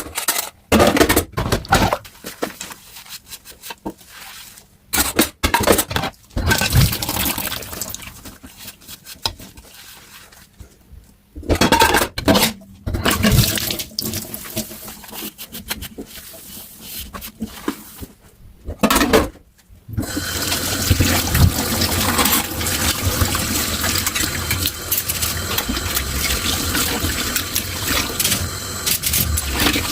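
Dishes being washed by hand in a kitchen sink: irregular splashing with knocks of dishware and short pauses, then a tap running steadily for the last third.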